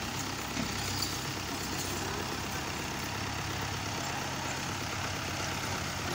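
Farm tractor engine running steadily at idle, a constant low hum.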